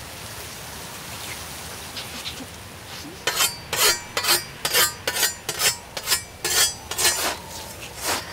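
A scythe blade: starting about three seconds in, a quick run of short, scraping metallic swishes, about two or three a second.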